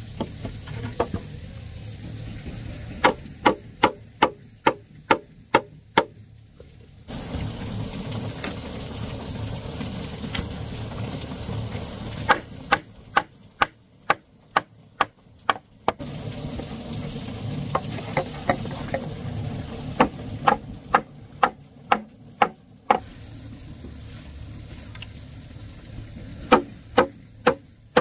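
A knife chopping on a cutting board in runs of steady strokes, about three a second, alternating with stretches of food sizzling in a hot pan.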